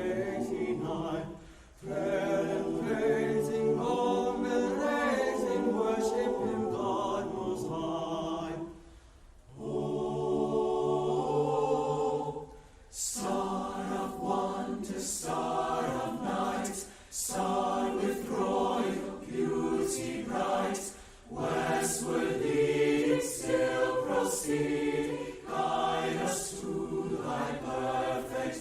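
A choir singing in phrases a few seconds long, with short breaks between them.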